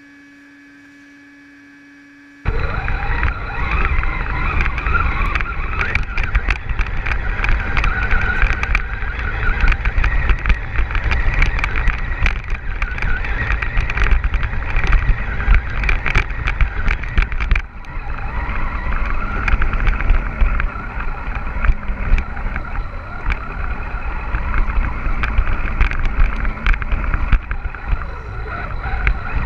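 Onboard sound of an Axial Wraith RC crawler driving over gravel and rough dirt: electric motor and gear whine with steady high tones, with many sharp clicks and rattles from the wheels, stones and chassis. It starts about two seconds in after a faint steady hum and breaks off briefly once, just past the middle.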